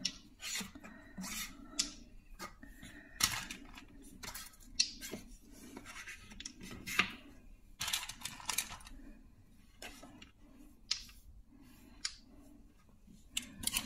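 Wooden pieces of a bone-shaped cat puzzle toy being slid along their grooves and lifted, giving irregular wooden scraping and clicking.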